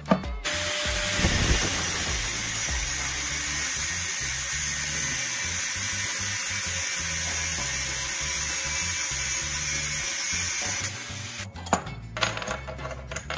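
Angle grinder with a thin abrasive cut-off disc cutting through a hardened steel file: a loud, steady grinding hiss that starts just after the beginning and stops suddenly about two seconds before the end. A few light metallic clicks follow near the end.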